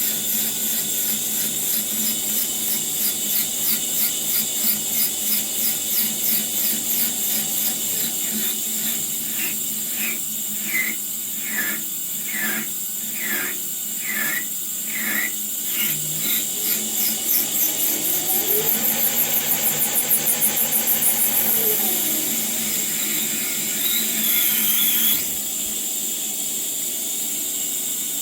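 Bench metal lathe running on its 1.1 kW motor from a three-phase variable-speed drive, with a steady high-pitched whine and a squeal that pulses evenly as the work turns. The pitch rises about two-thirds of the way through, the pulsing quickens, and then it falls back; the high squeal cuts off suddenly near the end.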